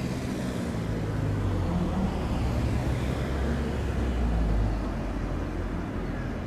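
Low vehicle rumble with a few low droning tones, swelling to its loudest about four seconds in and then easing off.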